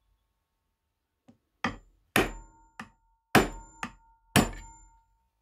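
Hammer strikes driving the steel shaft out of a Dazey Sharpit knife sharpener's housing: a light tap, then six sharp metal-on-metal blows about half a second apart, each ringing briefly.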